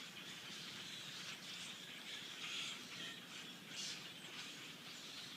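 A large flock of small songbirds calling together from a tree overhead: many overlapping chirps blending into a steady, faint chatter.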